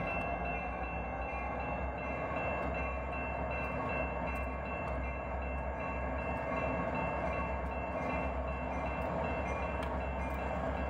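Approaching diesel freight locomotives, EMD SD60I and SD60Ms: a steady low engine rumble with several steady high tones over it.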